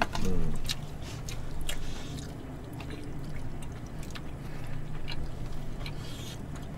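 Tableware sounds of eating: chopsticks clicking and tapping against plastic takeout containers and a stew pot, as scattered small ticks over a steady low hum.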